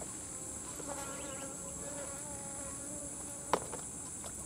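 Insects droning steadily in a high-pitched band, with a single sharp click about three and a half seconds in.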